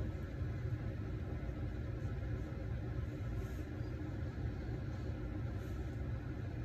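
Steady low rumble of background noise with no distinct events and no speech.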